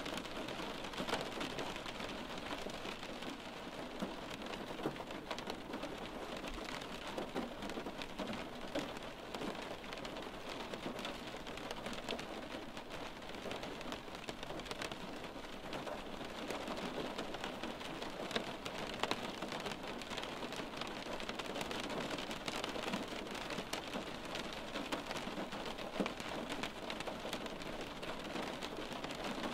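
Steady rain, with many separate drops tapping against window glass.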